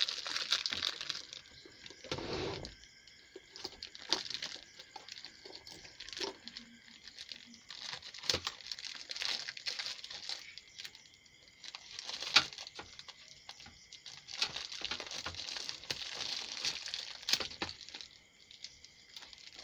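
Clear plastic bag crinkling and rustling as an amplifier circuit board is handled and unwrapped, with scattered small clicks and taps; one sharp click about twelve seconds in is the loudest.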